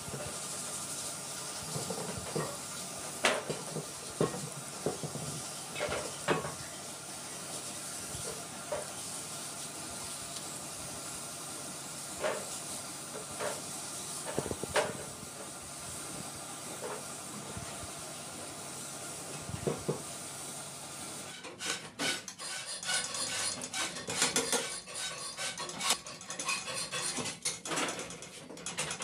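Compressed-air paint spray gun hissing steadily while spraying black paint onto a sewing machine head, with a few knocks. About two-thirds of the way in, the hiss cuts off and gives way to rapid metallic clicking and clinking of hand tools on small metal parts as a sewing machine is assembled.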